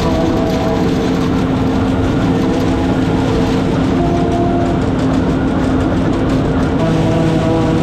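Allis-Chalmers 7095 tractor's diesel engine pulling a forage harvester under load, with the harvester's cutterhead and blower chopping hay picked up from the windrow. A steady heavy drone with several steady tones held through it.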